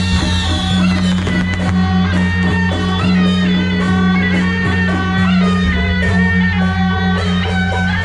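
Music with guitar-like plucked notes and drums over a steady low drone.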